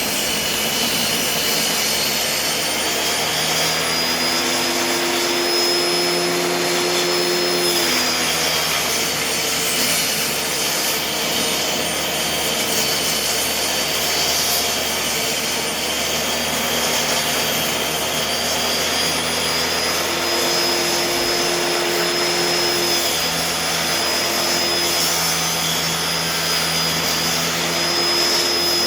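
Table saw running and ripping long plywood pieces: a steady, loud whine throughout, with a lower hum coming in for a few seconds twice as the blade works through the cut.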